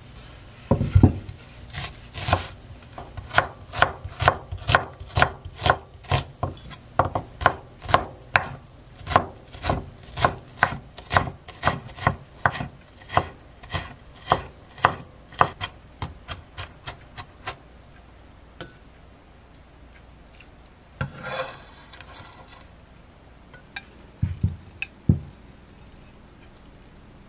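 Chef's knife dicing onion on a wooden cutting board: steady chopping strikes, about two to three a second, which stop after about 17 seconds. Later comes a brief rustle and a few soft knocks.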